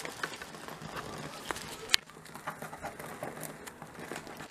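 Gift-wrapping paper being handled and pressed, with soft rustles and small ticks and one sharper click about two seconds in.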